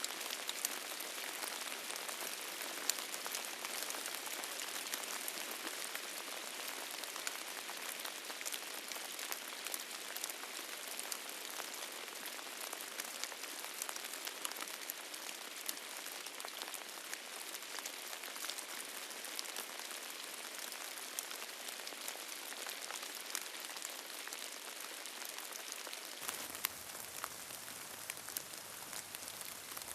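Steady heavy rain falling, an even hiss full of individual drops ticking on a hard surface, with no thunder.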